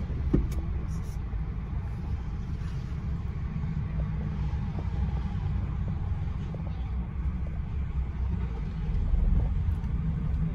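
A car creeping slowly, its engine and tyres giving a steady low rumble heard from inside the cabin. There is a brief knock just after the start.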